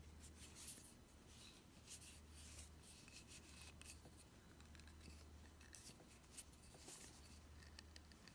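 Faint rubbing and small scratchy scrapes of hands gripping and twisting a Nikon 24-120mm zoom lens, trying to turn a cap off it, over a low steady hum.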